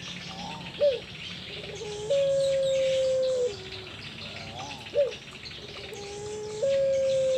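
Puter pelung dove cooing. Twice, a short rising-and-falling note is followed by a long steady coo that drops to a lower pitch at its end.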